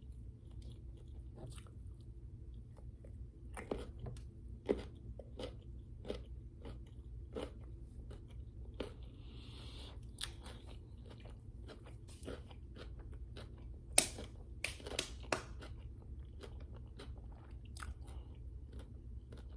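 Close-miked chewing of crisp food: repeated sharp crunches and bites between the teeth, the loudest cluster about fourteen to fifteen seconds in.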